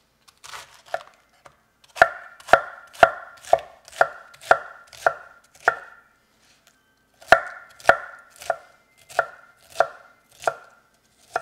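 Chef's knife chopping cabbage leaves on a cutting board: sharp, even strikes about two a second, in two runs with a short pause between them.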